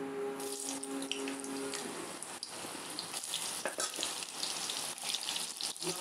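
Soaked, squeezed-out soya chunks sizzling and crackling as they fry in hot oil in a kadai. A steady hum is also heard through the first two seconds.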